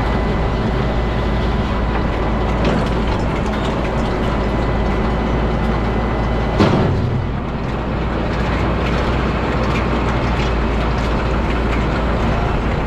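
Farm tractor running steadily under field work, with a single clank about six and a half seconds in.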